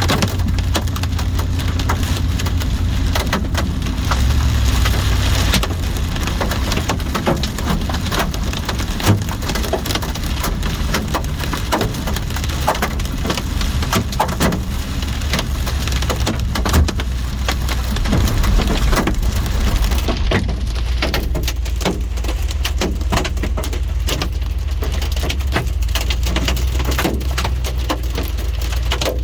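Large hailstones pounding a vehicle in a dense, continuous clatter of hard impacts over a steady low rumble, with a couple of heavier knocks standing out.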